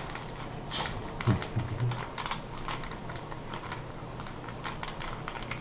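Rubik's Cube being scrambled by hand: its plastic layers clicking as they are twisted in quick, irregular turns.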